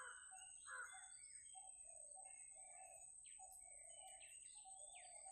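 Several birds calling and chirping faintly in the trees, with short notes and quick downward-sweeping calls, over a steady thin high-pitched tone.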